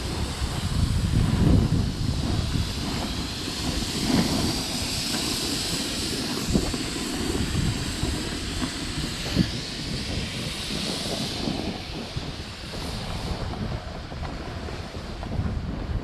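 Wind buffeting the microphone during a snowboard run, with a steady hiss of the board sliding over snow that swells in the middle and eases off near the end.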